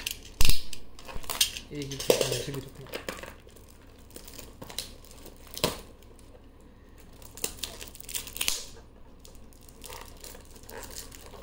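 Perfume packaging being handled and opened by hand: crinkling and rustling of the wrapping with a few sharp knocks, the loudest about half a second in.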